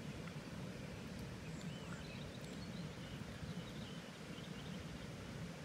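Outdoor background: a steady low rumble, with a few faint, high chirps from distant birds about one and a half to four and a half seconds in. The slug's feeding itself is not heard.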